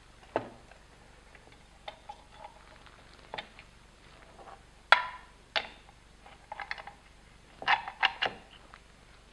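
Metal parts clinking and knocking as a brake pedal, its sleeve and bushing are fitted by hand into a pedal box housing: scattered light clicks and clinks, some ringing briefly, the sharpest about five seconds in and a cluster near the end.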